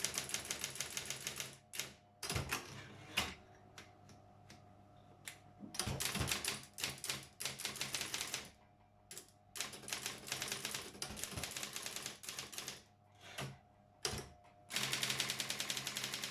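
Brother 4612 electric typewriter typing: fast, even runs of strikes and single strokes, separated by short pauses, over a steady hum from the machine.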